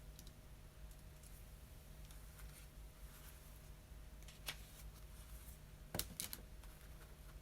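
Sparse, faint clicks from a computer keyboard: a few isolated keystrokes rather than steady typing. The sharpest come about four and a half seconds in and around six seconds in, over a faint steady hum.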